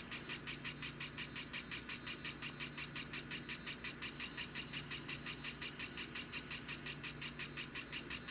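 3D printing pen's filament feed motor running as it extrudes PLA: a fast, even ticking, about six or seven ticks a second, over a low hum.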